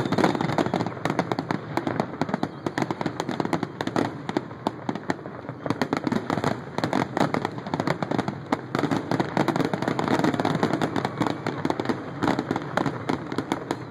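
Fireworks finale: a rapid, unbroken barrage of shell bursts, many bangs a second overlapping one another.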